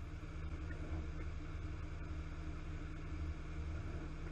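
Diesel engine of a parked fire truck running steadily at idle, a low even hum.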